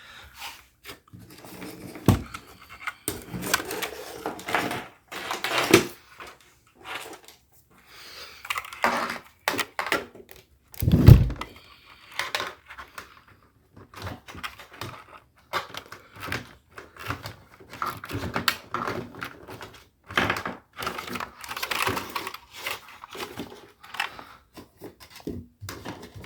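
Cables being handled and threaded through: irregular rustling, scraping and clicking, with scattered knocks and one loud thump about eleven seconds in.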